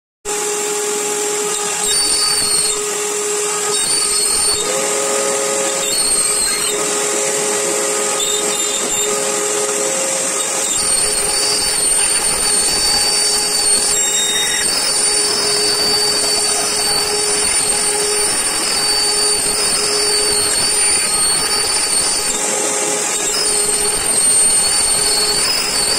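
CNC router spindle milling a wooden panel, with a shop vacuum running as its hose sucks up the chips at the bit. A steady, loud machine noise with a high whine that steps up and down in pitch now and then.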